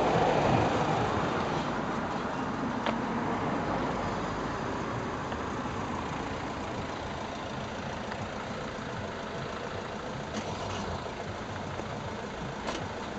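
Road traffic at a level crossing: car and truck engines and tyres as vehicles move off over the crossing, a pickup towing a trailer among them. A broad rumble, loudest at the start and slowly fading, with a few faint clicks.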